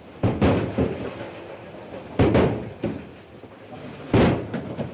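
A series of heavy thumps, one about every two seconds, each followed by a lighter knock.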